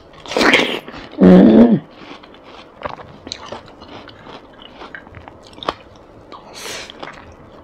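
Close-miked eating: a bite into a chunk of watermelon, a brief hum of the voice about a second in, then soft wet chewing clicks, and another bite near the end as a mouthful of rice goes in.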